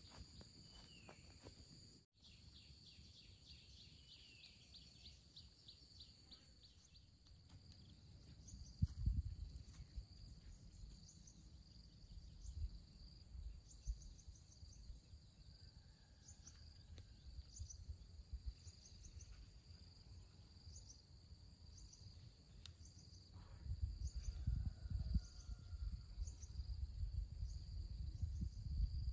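Faint countryside ambience: a steady high insect drone with short high chirps every second or so, which are insects or birds. Low thumps and rustling come about nine seconds in and again through the last few seconds.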